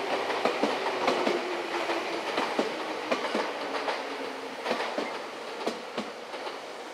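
Six-car Nankai electric commuter train pulling in and slowing: wheels clicking over rail joints and points, with a faint whine that falls in pitch as the sound dies down.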